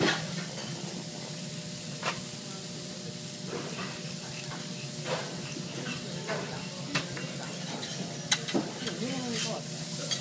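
Thick slabs of Kobe beef sizzling on a hot teppanyaki steel griddle: a steady hiss broken by sharp pops every second or two.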